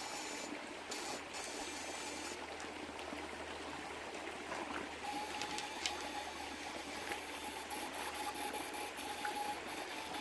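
Stream water flowing steadily, an even rushing hiss with no breaks.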